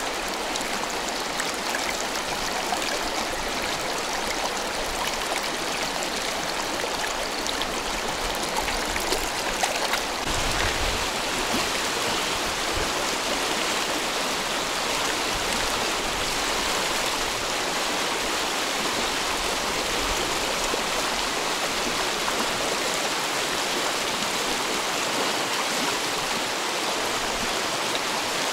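Mountain river rushing steadily, an even, unbroken sound of running water.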